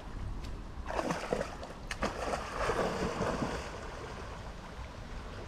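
Water splashing and sloshing as a German Shepherd wades in and swims, with a few sharp splashes in the first couple of seconds.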